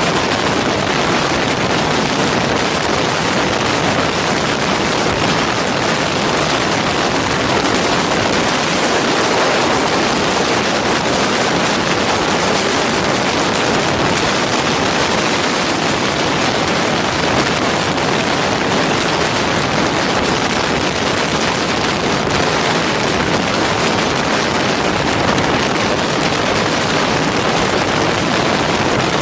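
Steady rushing wind on the microphone of a motorcycle riding at road speed, a loud, even hiss with road and engine noise buried under it.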